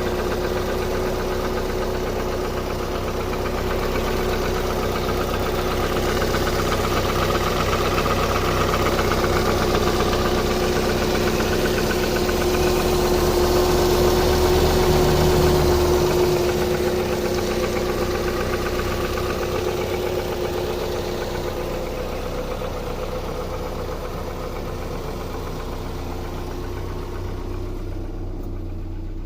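Opel Vectra B 1.8-litre four-cylinder petrol engine running with a fast, steady knocking from inside the engine, the engine knock the owner is recording. It grows a little louder around the middle, then settles back.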